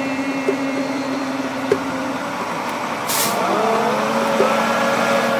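Heavy truck or bus engine running close by, with a short hiss of its air brakes about three seconds in.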